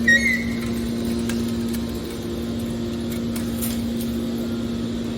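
Waste metal baler running with a steady mechanical hum. There is a brief high squeal right at the start and a few faint clicks.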